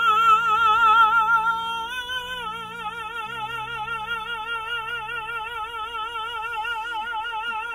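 A man's trained singing voice holding one long high note with wide, even vibrato, after sliding up into it; the pitch steps up slightly about two seconds in. Soft background music plays under it.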